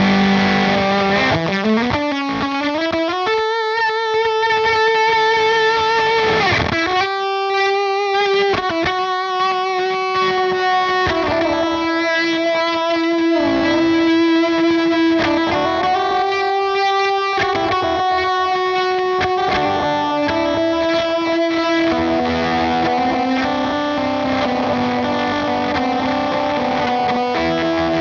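Yamaha Pacifica electric guitar played through a Gokko Mogwai overdrive/fuzz pedal boosted by a Gokko Salem Boost: single-note lead lines with slides, wide vibrato and long sustain, in a thick, saturated monosynth-like tone. Echo from a Gokko Margrane delay pedal comes in partway through.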